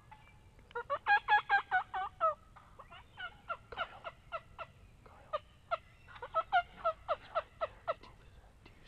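Turkey calling: a fast run of about ten notes about a second in, then shorter, scattered runs of notes until near the end.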